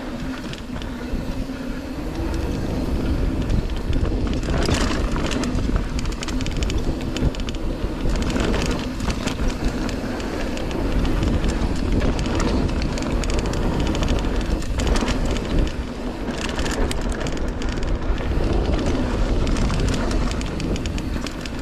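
Polygon Siskiu T7 full-suspension mountain bike riding fast down a dirt singletrack: a continuous rumble of knobby tyres on dirt and leaf litter, with wind on the microphone and the bike rattling sharply over bumps a few times, around five, nine and seventeen seconds in.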